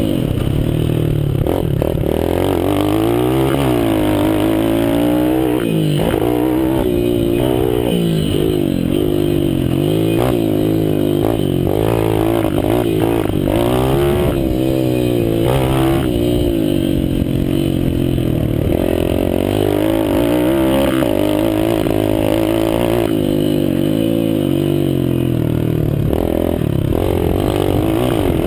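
Mini motocross bike's engine heard on board while riding a dirt track, the revs rising and falling every second or two as the throttle is opened and closed.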